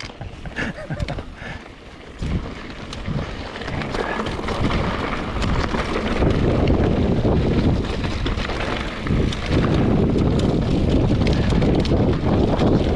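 Wind buffeting the microphone on a moving mountain bike, with scattered knocks and rattles from the trail; the wind rumble grows louder about six seconds in.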